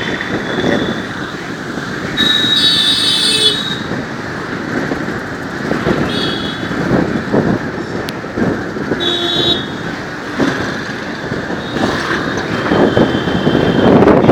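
Vehicle horns honking repeatedly in dense traffic over the running motorcycle's engine and road noise: a long honk about two seconds in, the loudest, shorter honks around six and nine seconds, and another near the end.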